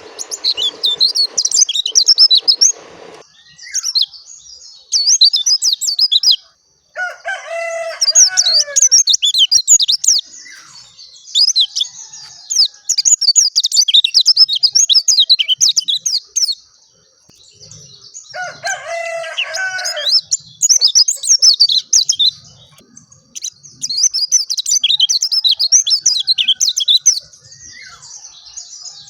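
Pleci dakun (white-eye) singing: long runs of fast, high twittering broken by short pauses. Twice a lower, drawn-out call of about a second and a half sounds under it.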